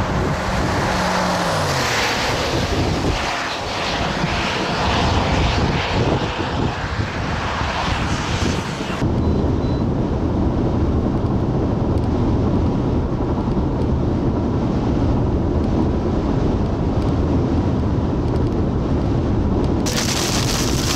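Wind gusting across the microphone, with a low hum dropping in pitch about a second in. After a cut, a car's engine and tyres rumble steadily, heard from inside the moving car. A wider hiss returns near the end as rain hits the windshield.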